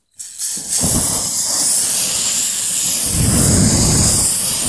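Aerosol spray can hissing steadily once it starts about half a second in, with a brief low rumble under it about three seconds in.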